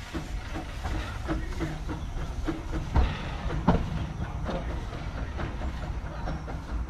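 Small narrow-gauge steam locomotive running light and pulling away, with a run of short, even beats and two sharper clanks about three seconds in.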